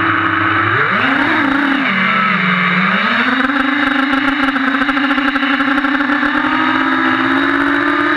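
FPV quadcopter's brushless motors whining, the pitch dipping and rising with the throttle in the first three seconds, then holding a steady whine that edges higher near the end.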